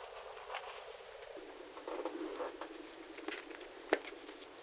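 Rustling and handling of a motorcycle helmet's fabric cheek pad, with scattered small clicks and one sharp click about four seconds in.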